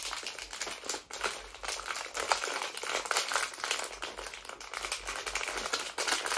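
Plastic candy packet being handled and pulled at to get it open, the wrapper crinkling in many small irregular crackles.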